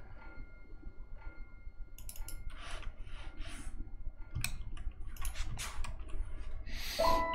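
Scattered clicks and clatter of a computer keyboard and mouse in use. Near the end a two-note electronic chime begins, repeating about once a second.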